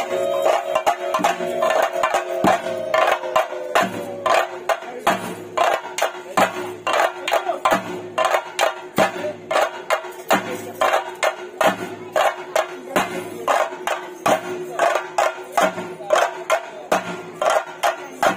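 Theyyam ritual percussion: chenda drums beaten in a steady, rapid run of evenly spaced strokes over a held drone note. A pitched tone sinks slowly in the first few seconds, then fades out.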